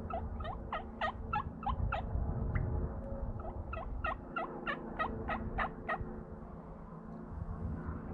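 Turkey yelping: two runs of sharp, downward-falling notes at about four a second, each run lasting about two seconds with a short pause between.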